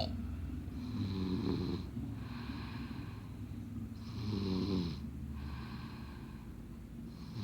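Steady snoring from someone sound asleep: a loud pitched snore on the in-breath about a second in and again about four seconds in, with quieter rough breathing between.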